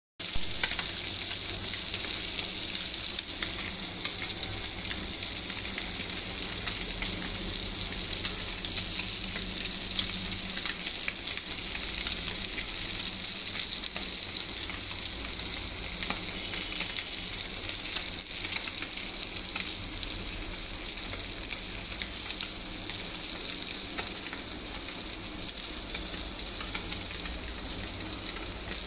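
Small whole puti fish (pool barb) frying in oil in a pan: a steady sizzle with fine crackles throughout.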